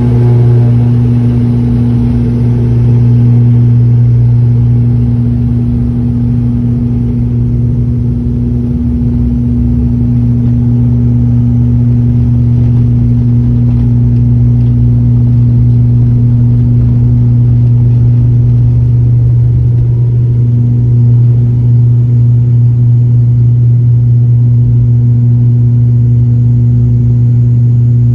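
ATR 72 twin turboprop engines and propellers at takeoff power, heard from inside the cabin: a loud, steady, deep propeller drone with an even hum above it, held through the takeoff run and climb-out.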